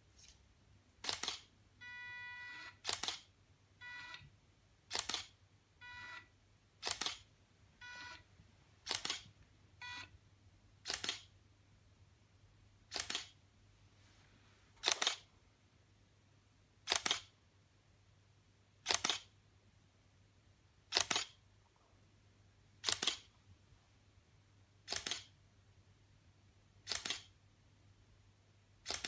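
Canon DSLR shutter firing about once every two seconds, an interval timelapse being shot from a motorized slider. In roughly the first ten seconds, short electronic beeps fall between the shutter clicks, and a faint low hum sits underneath.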